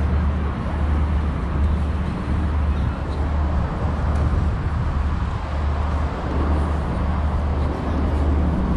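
Steady city road traffic: a constant low rumble and hiss of cars passing on a wide avenue.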